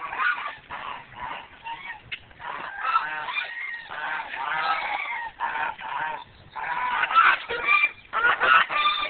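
A flock of domestic Chinese geese, white and brown, honking repeatedly in short overlapping calls as they walk toward the camera.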